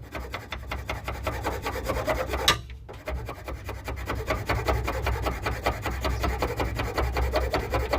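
A file scraping rapidly back and forth over the cut edges of a quick-disconnect part, filing them down. A sharp click and a brief pause come about two and a half seconds in before the filing resumes.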